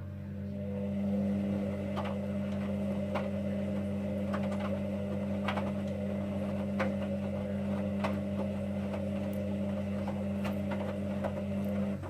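Hoover Dynamic Next front-loading washing machine's drum motor turning the wet load: a steady hum that starts, runs evenly for about twelve seconds, then cuts off. Light, irregular clicks and knocks sound over it.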